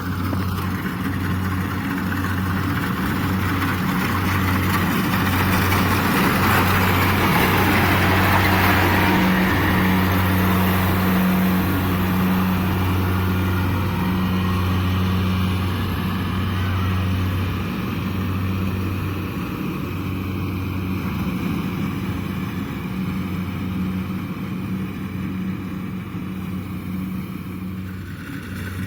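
Kubota DC70 Plus rice combine harvester running steadily with a low engine hum. A rushing noise rises over the hum about a fifth of the way in, peaks near the middle, then eases off.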